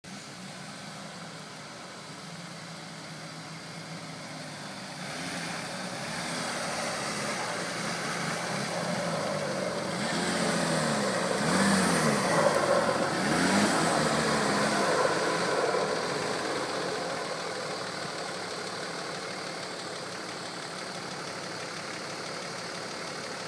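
Nissan Patrol GR engine working under load as the 4x4 crawls up a steep muddy track, growing louder from about five seconds in. In the middle it revs up and down several times, then settles back to a steady low run near the end.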